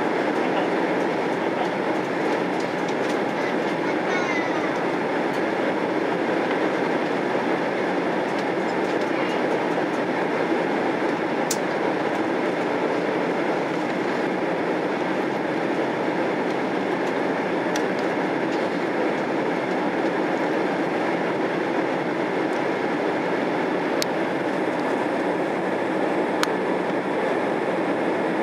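Steady roar of engines and rushing air heard inside the passenger cabin of a Boeing 767-300 airliner in flight, with a few faint ticks.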